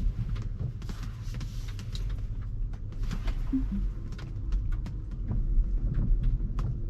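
Low rumble inside a Tesla's cabin as the car creeps slowly into a parking stall, with scattered light ticks throughout.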